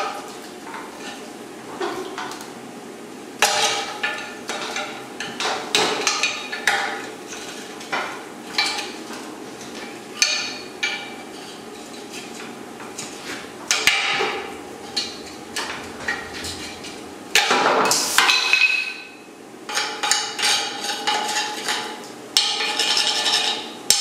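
A steel pry bar knocked and levered against a welded-on bracket on a steel Land Rover axle casing, making irregular metal-on-metal clanks and scrapes. The bracket breaks free near the end.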